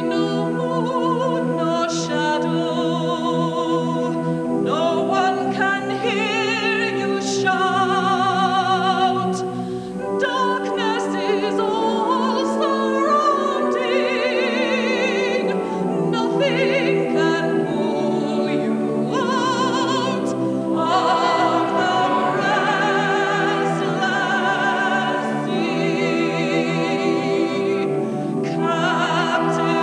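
Classical music: an operatic voice singing long notes with wide vibrato over sustained accompaniment.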